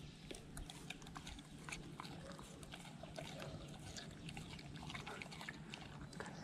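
Golden retriever chewing a piece of fruit: faint, irregular wet clicks and smacks of its jaws and mouth.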